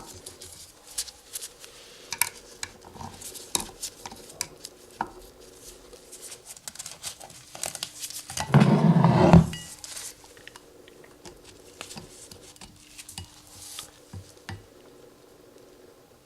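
Small metal parts clinking and being handled in scattered taps, with one loud, rough rush lasting about a second just past the middle, over a faint steady hum.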